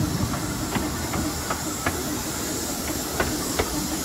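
Steam train of a narrow-gauge railway running: a steady hiss over a low rumble, with irregular light clicks.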